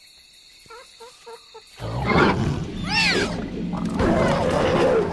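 A few faint chirps, then about two seconds in a sudden loud outburst of wild boar grunting with a quick run of high squeals, over a low droning film score.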